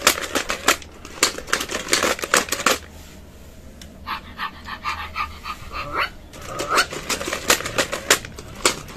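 Two Fisher-Price Crawl with Me Puppy toys crawling on a tile floor, their plastic legs clattering in rapid clicks, with electronic dog barks from the toys' speakers. The clatter eases off for a moment about three seconds in, then picks up again.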